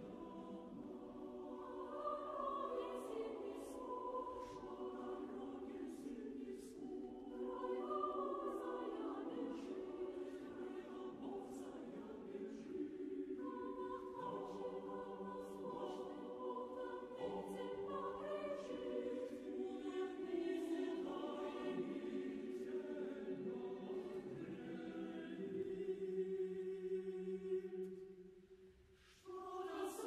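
Choral music: a choir singing slow, sustained lines, dipping away briefly near the end before the singing comes back in.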